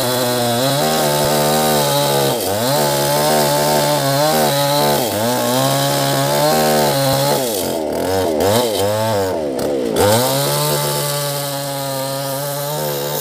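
Petrol chainsaw cutting through a mahogany log at high revs. The engine note dips and recovers several times as the chain bogs down in the cut, most deeply around the middle of the cut.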